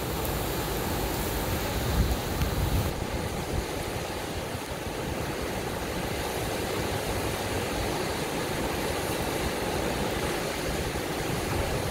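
Flood-swollen San Jacinto River rushing through its concrete-banked channel, a continuous steady noise of fast water, with a brief low rumble about two seconds in.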